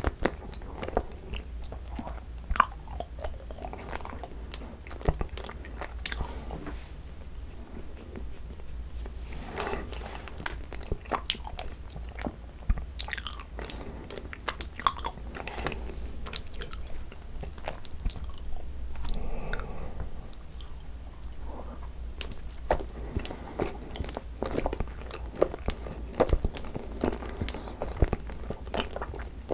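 Close-up chewing and biting of cream-cheese-filled Korean rice cakes (tteok): soft, sticky mouth sounds with frequent small clicks and smacks at an irregular pace, over a faint steady low hum.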